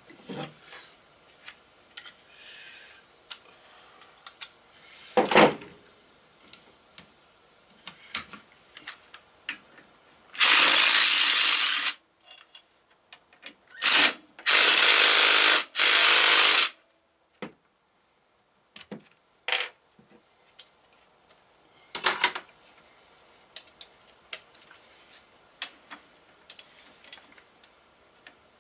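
A power drill runs in three bursts: about two seconds, then a brief blip, then about two seconds more. Scattered clicks and knocks of tools and parts being handled come before and after.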